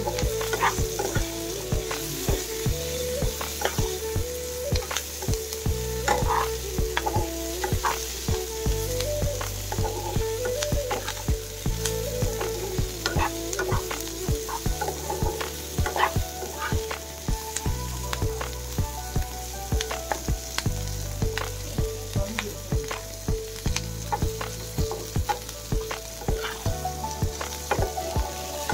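Meat and sliced onions sizzling as they stir-fry in a coated frying pan, with a flat metal spatula repeatedly scraping and clacking against the pan as the pieces are turned.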